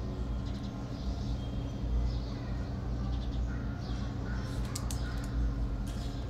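Steady low electrical-sounding hum of room background, with faint short high tones and a few soft clicks over it.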